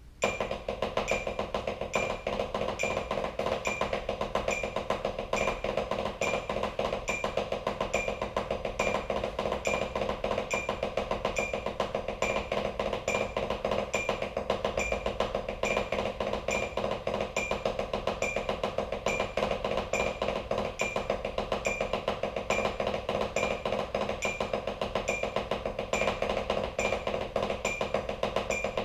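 Drumsticks playing continuous fast rolls on a practice pad, starting from the left hand, over a steady metronome click of about two ticks a second.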